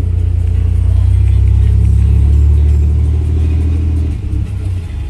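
Truck engine and road noise heard from inside the cab while driving: a steady low drone that builds slightly, then eases off about four seconds in.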